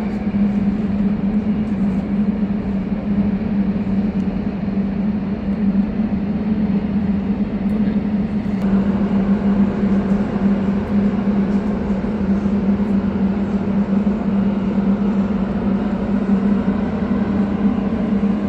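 A steady, machine-like hum at one unchanging low pitch, with a noisy rush above it that grows a little fuller about halfway through.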